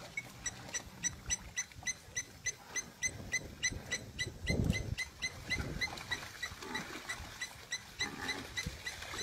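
Wild animal sounds: a high chirp repeated about four times a second throughout, with low grunts underneath, the loudest about four and a half seconds in.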